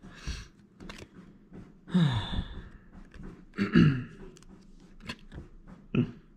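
Cardboard trading cards handled, slid and laid down on a wooden tabletop, with small clicks and rustles. Two louder short breathy vocal sounds with a falling pitch come about two seconds in and near four seconds.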